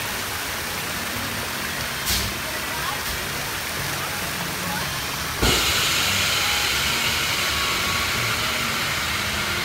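Steady rushing hiss from the ride in motion over its lit fountains, with faint voices around. A short knock comes about two seconds in, and the hiss turns suddenly louder and brighter about five and a half seconds in.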